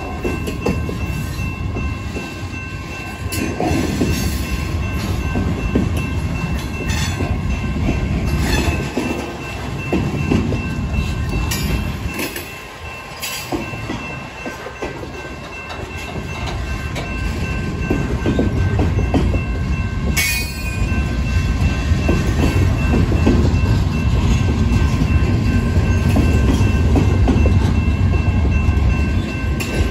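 Freight train cars rolling past at close range: a steady rumble of wheels on rail with irregular clacks, growing louder about halfway through as a string of gondolas goes by.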